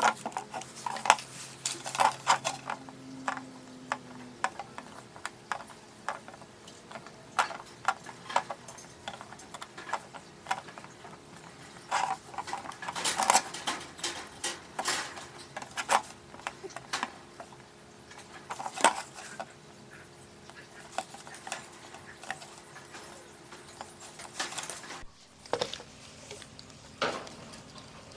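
Irregular light clicks, taps and clinks of small hard parts and hand tools being handled during workshop repair work, over a faint steady hum. A brief break comes near the end.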